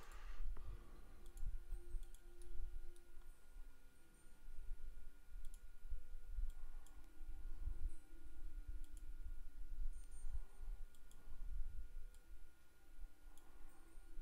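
Scattered clicks of a computer mouse and keyboard, irregularly spaced, over a faint steady high hum.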